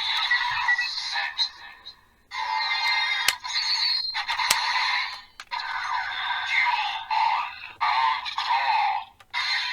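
DX Desire Driver toy belt playing its electronic sound effects, announcer voice lines and standby music through its small, tinny speaker as raise buckles are worked. Sharp plastic clicks come a few seconds in.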